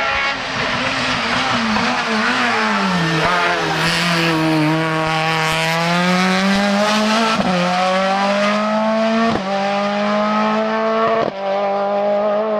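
Hillclimb race car engine coming off the throttle with its pitch falling, then accelerating hard through the gears. Three upshifts come about two seconds apart, each a brief break in the note before it climbs again.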